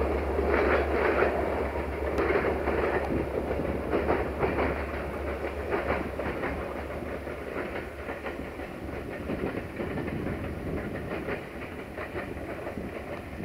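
Locomotive-hauled passenger train behind an EMD-engined CFR Class 65 'Jimmy' diesel, passing and moving away: wheels clack over the rail joints in a quick rhythm that fades, and a low rumble dies away about halfway through.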